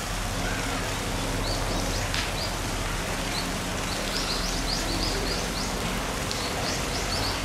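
Small birds chirping in quick runs of short high-pitched notes, starting about a second and a half in, over a steady hiss and low hum of outdoor background noise.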